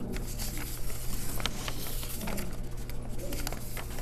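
Room tone over a microphone: a steady low hum, with scattered small clicks and rustles.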